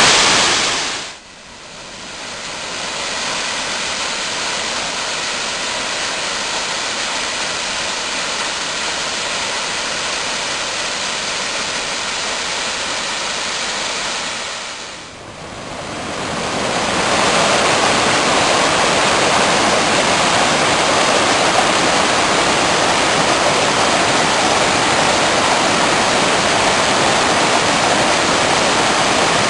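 Water rushing down a mountain waterfall in a steady, loud rush. It fades out briefly about a second in and again around fifteen seconds, and comes back a little louder after the second fade.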